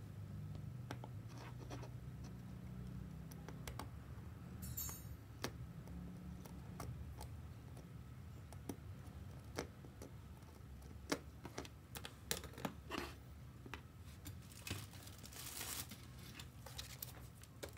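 Scattered light clicks, taps and rustles of hands handling a small amplifier circuit board, its wires and a screwdriver on a cutting mat, over a low steady hum.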